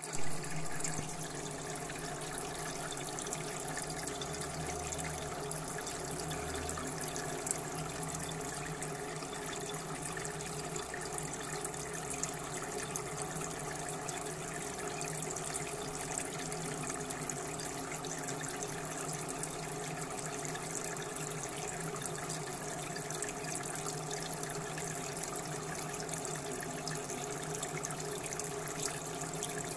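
Kitchen faucet with a spray-head aerator running steadily, its thin spray splashing onto a plate in a stainless steel sink. A brief bump sounds right at the start.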